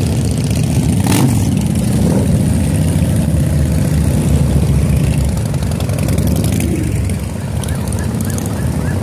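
A line of heavy cruiser and touring motorcycles riding slowly past one after another, their engines running at low speed in a steady, dense low drone.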